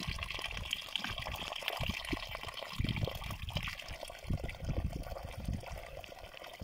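Cold spring water running steadily out of a plastic pipe and splashing onto rocks and mud, with irregular low bumps mixed in.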